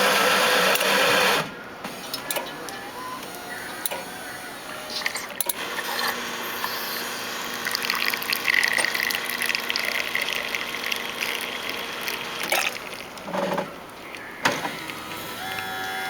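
Super-automatic espresso machine grinding beans with its built-in grinder, which stops about a second and a half in; the machine then brews a double shot, its pump running with a steady hum and liquid sounds, with a few clicks and knocks from the brew unit.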